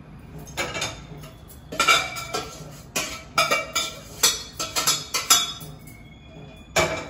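Steel kitchenware clattering: a metal ladle knocking and scraping against steel pots, giving a quick series of ringing clinks, with one more clink near the end.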